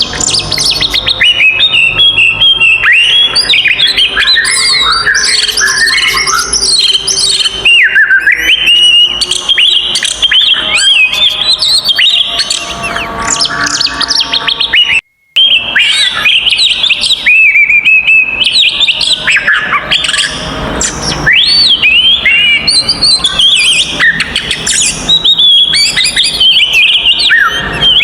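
Oriental magpie-robin (kacer) singing a loud, fast, unbroken stream of varied whistles, chirps and pitch glides. This is the heated 'fighting' song used to provoke other kacer. The sound cuts out for a moment about halfway through.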